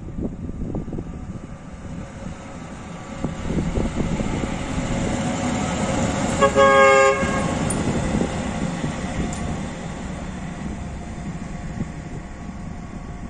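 HŽ Cargo class 2132 diesel shunting locomotive running past, its engine and wheels growing louder as it comes close and then fading as it moves away. About halfway through it gives one short horn blast.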